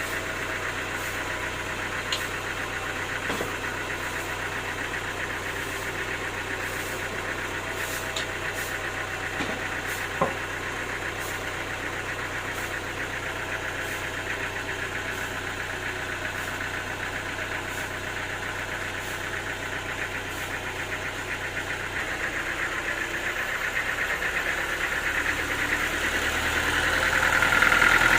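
Sawmill engine running steadily, growing louder over the last few seconds.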